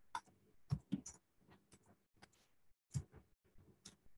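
Computer mouse clicks and keyboard keystrokes, about eight sharp, separate clicks at irregular intervals.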